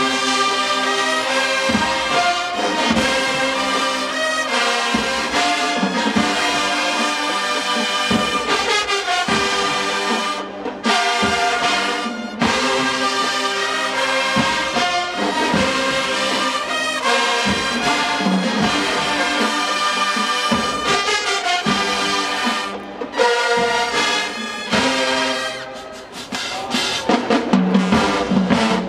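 Marching band brass section of trumpets and trombones playing a loud, full tune, with a few brief breaks between phrases.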